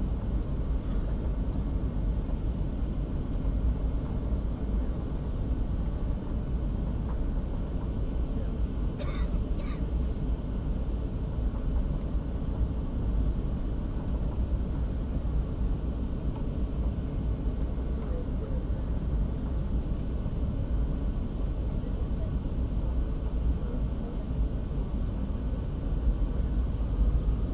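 Cabin noise of a Boeing 737-800 descending on approach: a steady low rumble of its engines and the airflow around the fuselage, heard from inside the cabin. A few faint clicks come about nine seconds in.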